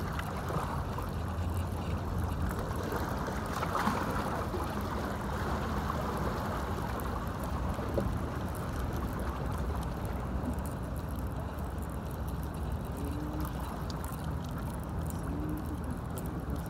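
Steady rush of sea water at the shoreline, with a steady low hum underneath and a brief swell in the noise about four seconds in.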